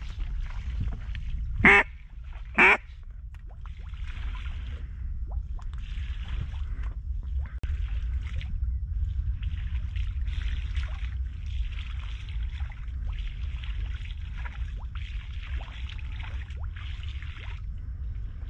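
Two loud quacks on a duck call, about a second apart: calling to draw in a pair of passing mallards. A low wind rumble on the microphone runs underneath.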